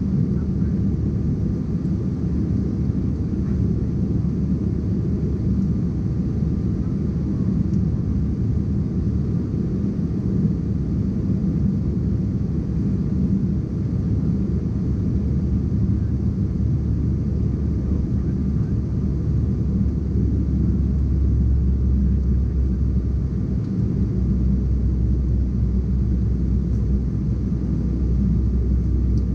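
Steady cabin noise of an Embraer E190 airliner in flight: the drone of its General Electric CF34-10E turbofans and the rush of air past the fuselage, heard inside the cabin, with a faint steady whine above it. The deep rumble grows a little stronger about two-thirds of the way through.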